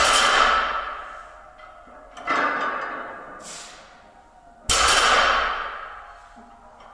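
Loaded barbell with bumper plates on repeated deadlift reps: three ringing metallic clangs about two and a half seconds apart, the first and last with a dull thud as the plates meet the floor.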